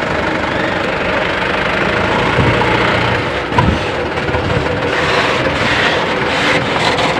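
Diesel engines of a queue of light trucks running, a steady engine drone with a couple of low thumps about midway.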